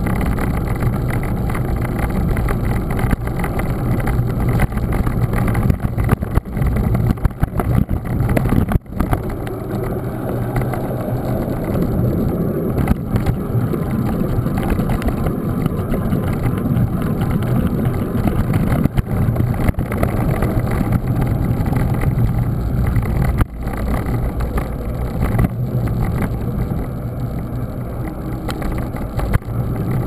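Mountain bike riding over a rough, wet road, heard from a handlebar-mounted camera: steady wind buffeting on the microphone mixed with tyre and frame rumble, heaviest in the low end, cutting out briefly a couple of times.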